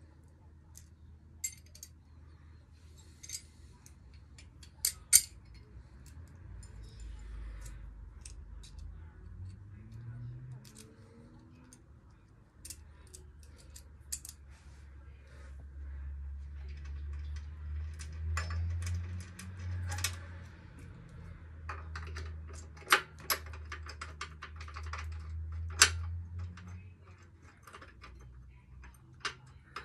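Metal hand tools clinking and clicking as a socket and ratchet are fitted and worked on a motorcycle's rear shock absorber mounting bolts, in scattered sharp knocks. A low drone rises in the background partway through and stays under the clicks until near the end.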